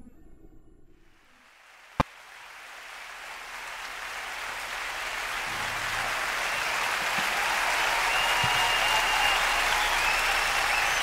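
An even rushing noise, like applause or a whoosh, swelling slowly and steadily, after a single sharp click about two seconds in.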